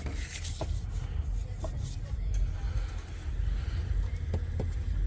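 Car engine running: a steady low rumble, with a few brief chirps over it.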